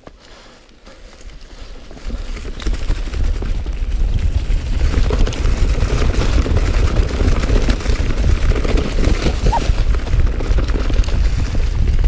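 Mountain bike descending a leaf-covered dirt trail: tyres rolling over leaves and dirt with bike rattle, under heavy wind rumble on the camera microphone. It is fairly quiet at first and turns into a loud, steady rumble from about two seconds in as the bike picks up speed.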